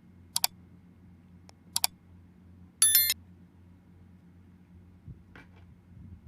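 Hard little clicks from small tools or parts handled on a repair bench: two quick double clicks, then a short ringing clink about three seconds in, and a couple of faint clicks near the end. A steady low electrical hum runs underneath.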